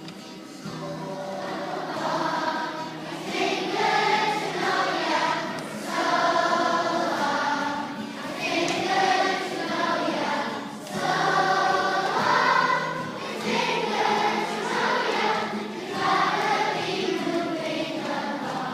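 A large group of schoolchildren singing a goodbye song together, in phrases of a few seconds with short breaths between them.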